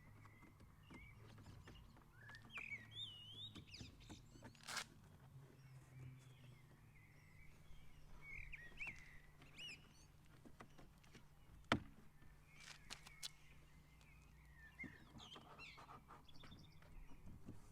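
Faint birds chirping on and off, with a few light clicks and one sharp click about two-thirds of the way in as the plastic sunshade is pressed into its door-window clips.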